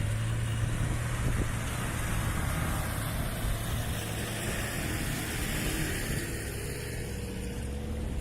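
Off-road 4x4 engine running steadily at low revs as the vehicle creeps slowly over rough ground.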